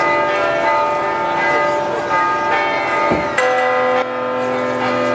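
Church bells ringing for a feast-day procession, many overlapping tones sounding together, with a fresh strike about three and a half seconds in.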